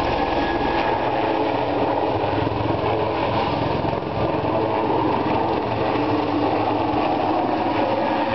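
Westland Lynx Mk.95 twin-turbine helicopter flying a low display pass, its rotor beating in a rapid, steady pulse over the engine noise, with a brief dip in loudness about four seconds in.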